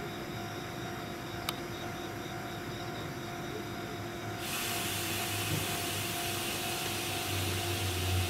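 Steady electrical hum of a stationary train, with a single click about a second and a half in. A broad hiss comes in suddenly about halfway through, and a low rumble swells near the end.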